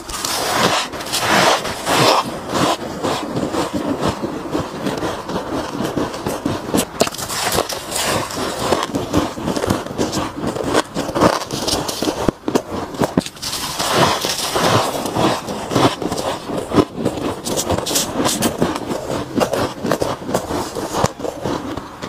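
Powdery freezer frost crunching and squeaking as mouthfuls are bitten and chewed, close to a clip-on microphone, with gloved hands scraping up more of the frost between bites.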